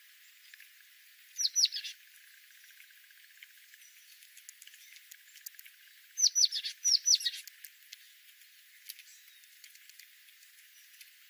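A small bird chirping: a quick run of three high notes, each falling in pitch, about a second and a half in, then two longer runs of the same falling chirps around six to seven seconds in.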